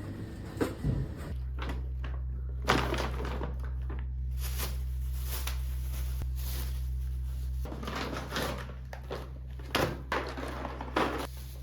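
Knocks and clatters of things being handled around the house, over a steady low hum from a running appliance that starts about a second in and stops about two-thirds of the way through.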